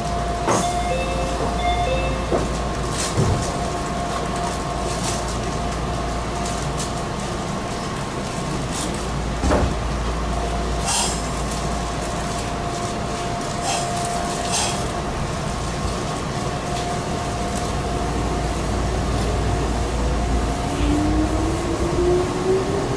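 Meitetsu 6000-series electric train standing at a platform with its doors closing: short chime tones and clicks about a second in, a steady tone and occasional knocks, then near the end a rising whine as the traction motors pull the train away.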